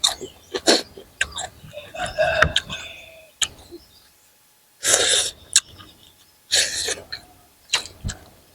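Close-miked eating sounds from a person eating steamed chicken: chewing with sharp wet clicks and smacks, and two short hissing mouth sounds about five and six and a half seconds in.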